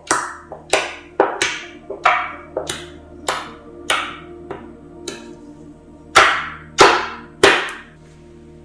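Homemade sugar-and-shampoo slime being pressed and slapped by hand, giving a string of sharp, irregular smacks and pops, with three loud ones in steady succession near the end, over background music.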